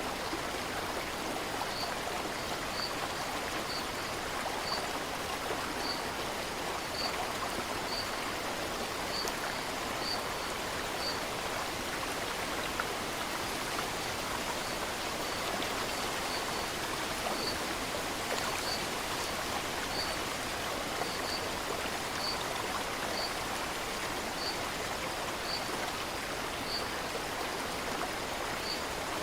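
Steady rushing of a stream or small waterfall. Over it a short high chirp repeats about once a second, pausing for a few seconds around the middle.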